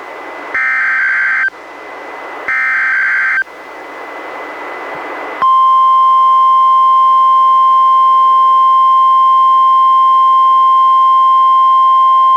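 NOAA Weather Radio Required Weekly Test signal: two one-second bursts of the harsh, buzzy SAME digital header, separated by radio hiss, then about five seconds in the steady 1050 Hz warning alarm tone begins and holds.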